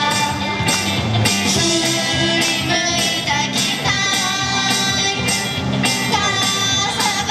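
Upbeat Japanese idol pop song: female vocals over a backing track with a steady drum beat of about two beats a second.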